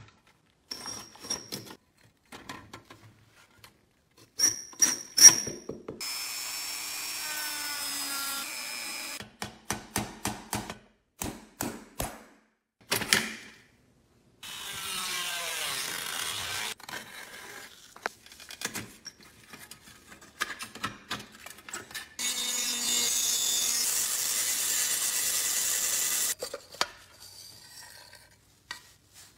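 Clicks, taps and clinks of rusty pressed-steel toy truck parts being handled and taken apart. A power tool runs in three stretches of a few seconds each, about six seconds in, in the middle, and near the end.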